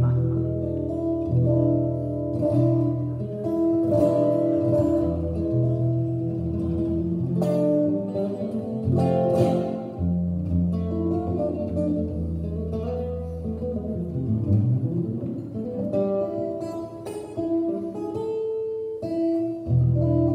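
Solo archtop guitar playing an instrumental passage: chords and melody notes ringing over sustained bass notes.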